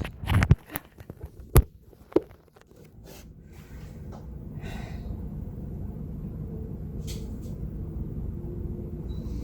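A few short, sharp knocks in the first couple of seconds, then a steady low rumble that carries on to the end.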